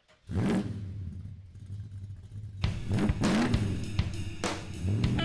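Music with a drum kit: a single crash-like hit, then a steady drum beat starts about two and a half seconds in.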